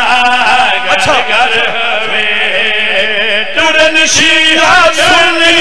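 Men chanting a devotional verse in Punjabi through microphones, a lead reciter's voice with other men's voices joining in.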